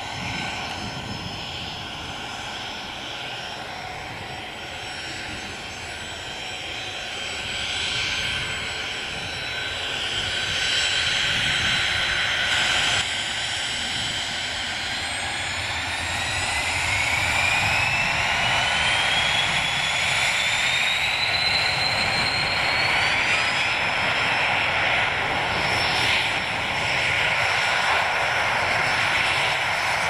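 Twin turbofan engines of a taxiing Hawker 800-series business jet, a steady jet roar with a turbine whine. About halfway through the whine climbs steadily in pitch and the sound grows louder as power comes up, then it holds at a high pitch.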